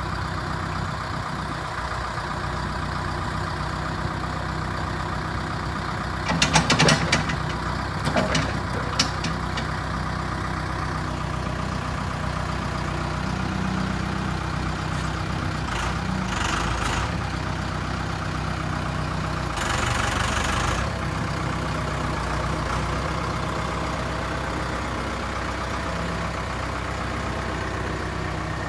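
Case 590 Turbo loader backhoe's turbocharged diesel engine idling steadily. A few sharp metallic clanks come about seven and nine seconds in, and a short hiss about twenty seconds in.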